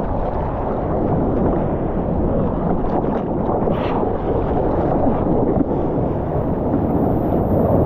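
Steady rumbling wind buffeting the action camera's microphone, mixed with the rush of sea water around the surfboard.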